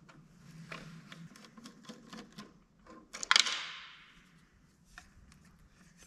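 Small clicks and taps of hand tools and parts as the front control panel of a Lincoln 210 MP welder is taken apart, with one louder clack about three seconds in that trails off over about a second.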